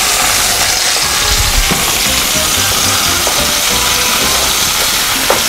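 Food frying in hot coconut oil in a pan, a loud steady sizzle.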